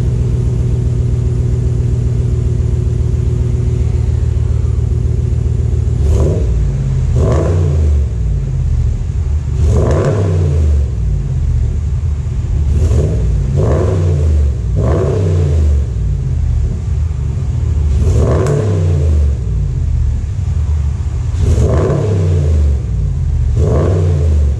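A 5.7 L Hemi V8's exhaust, fitted with a mid-muffler delete but still on its stock resonators, running just after a cold start. It idles steadily at first, then from about six seconds in it is revved in about ten short throttle blips, each rising and falling back to idle.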